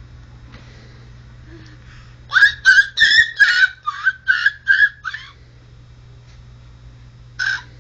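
A baby squealing with laughter: a quick run of about nine short, high-pitched squeals starting a little over two seconds in, then one more squeal near the end.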